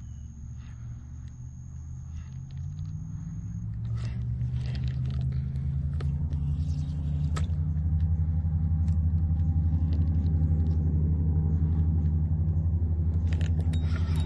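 A motor engine drone, low and pitched, growing steadily louder over the first several seconds and then running at a constant level. Small clicks and taps lie over it.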